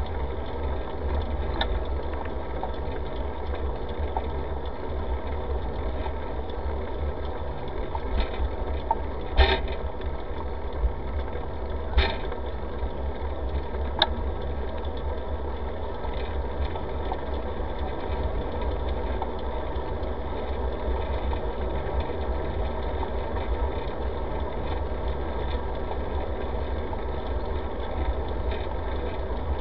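Bicycle rolling along an asphalt path, heard through a camera mounted on the bike: a steady low rumble and rattle, with a few sharp knocks near the middle.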